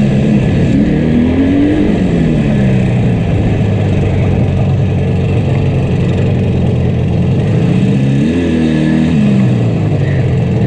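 Yamaha RD350's two-stroke twin engine running with one cylinder heavily misfiring, revving up and dropping back twice, about a second in and again near the end.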